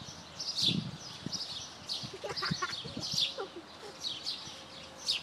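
Small birds chirping: short, high, falling chirps repeating several times a second, with a few faint low knocks underneath.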